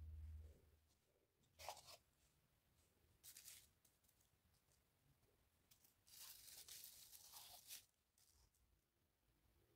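Near silence, broken by a few faint crinkles and rustles of plastic film as plastic-wrapped balls of sugar paste are handled on a paper tray, with a short cluster of them in the second half.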